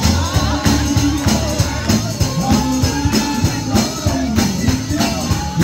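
Live gospel song with a fast, steady beat of about four strokes a second, a tambourine on the beat, low bass notes underneath and a wavering voice above.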